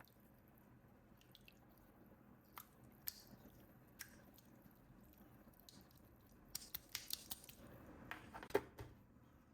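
Faint handling sounds from toys and their packaging being unboxed: scattered soft clicks and crinkles, a few at first, then a denser run of them over the last few seconds.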